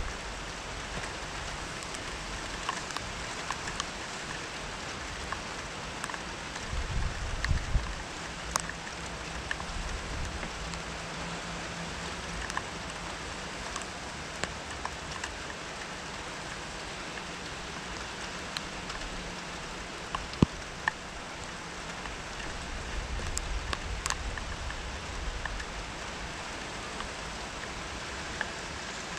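Steady rain falling, with sharp taps of single drops hitting close by now and then, and low rumbling swells about seven seconds in and again in the last third.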